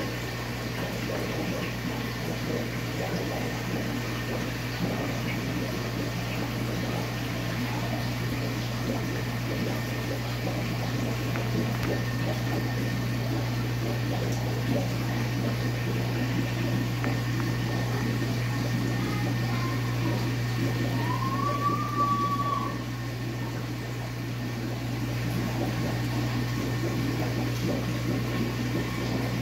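Aquarium pump and filter running steadily: a constant low hum with water gurgling and trickling into the tank. About three-quarters of the way through, a brief squeak rises and falls in pitch.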